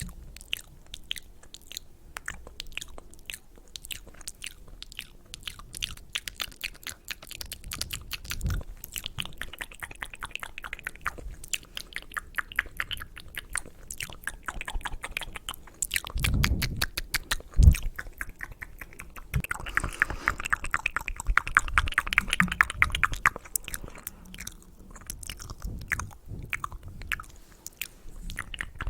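Close-miked ASMR mouth sounds: rapid wet clicks and smacks of the tongue and lips, busiest a little past the middle, with a few soft low thumps partway through.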